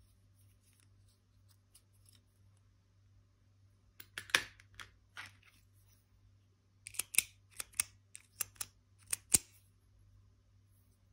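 Metal retractable ballpoint pens clicking as their push-button mechanisms are pressed: a few clicks about four seconds in, then a quicker run of sharp clicks.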